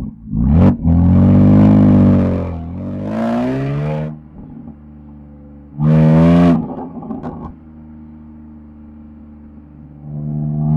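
BMW M4 F82 Competition's twin-turbo straight-six engine and exhaust revving: a short rev, then a long loud rev and a second one rising in pitch, dropping back to a steady idle. About six seconds in comes another short sharp rev with a few pops after it, then idle, and the revs climb again near the end.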